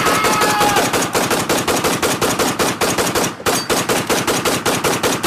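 Automatic gunfire: one long, rapid burst of shots, about ten a second, with a short break a little over three seconds in.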